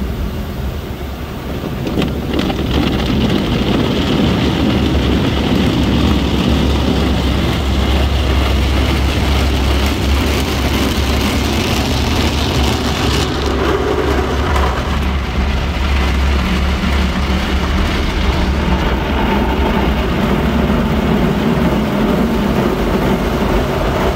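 Automatic tunnel car wash heard from inside the car: water spray and wash brushes beating on the windscreen and body over a steady low rumble of the wash machinery. It gets louder about two seconds in.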